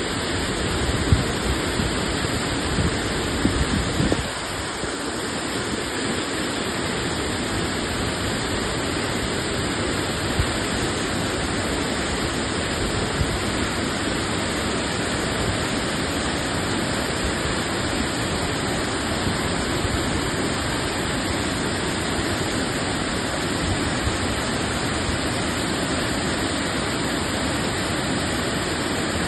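Waterfall rushing with a steady, even noise. Gusty low rumbling runs under it for the first four seconds and stops suddenly about four seconds in.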